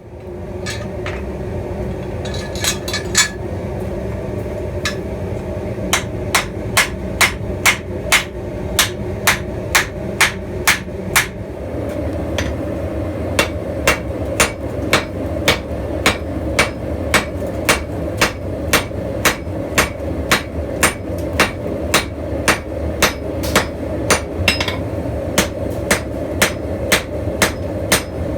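Blacksmith's hammer striking steel on an anvil: a few scattered blows at first, then a steady rhythm of about two ringing strikes a second, over a steady low rumble.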